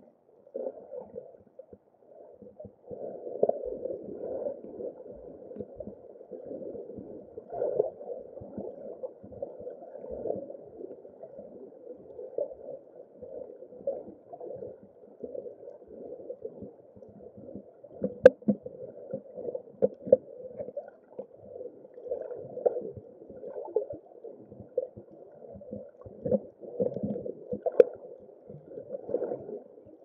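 Muffled underwater gurgling and water movement, heard through an underwater camera housing, rising and falling unevenly throughout. A few sharp clicks stand out, one about two-thirds of the way in and another near the end.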